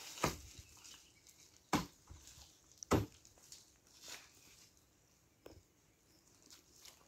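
A few sharp knocks in an otherwise quiet farmyard: three louder ones about a second or so apart in the first three seconds, then a couple of fainter ones.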